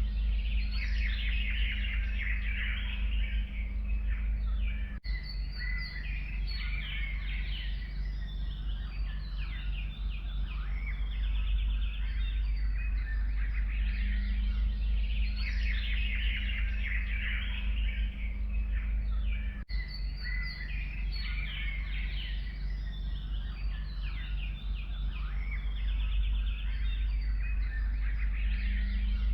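A chorus of forest songbirds, many birds chirping and singing over one another, over a steady low rumble. There are two brief dropouts, about five seconds in and near two-thirds of the way through.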